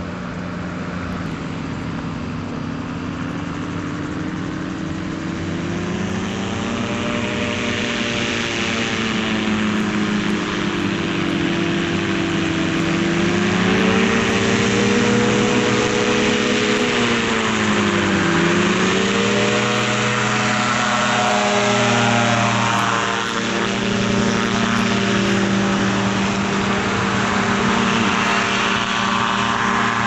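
Sno Bird gyrocopter's engine and propeller running, growing louder and rising in pitch over the first half, with a brief dip in pitch a little past halfway before it picks back up.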